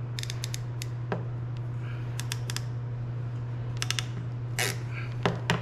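Hand crimping tool clicking in short groups of quick clicks as it is closed onto an open-barrel crimp terminal, over a steady low hum.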